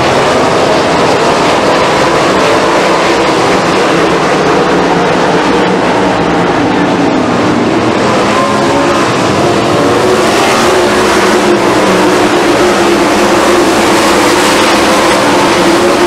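A field of 410 sprint cars racing, their 410-cubic-inch methanol-burning V8 engines running together in one loud, continuous din.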